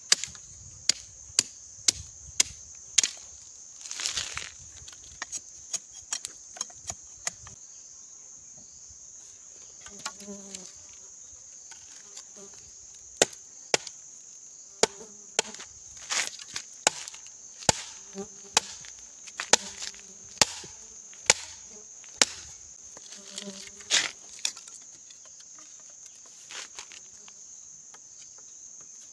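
Irregular, sharp chops of a blade cutting into bamboo, dozens of strikes with short pauses, over a steady, high-pitched buzz of insects.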